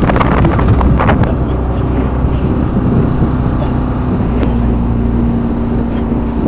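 Outboard motor of a coaching launch running steadily, with wind buffeting the microphone. A few sharp clicks come in the first second or so.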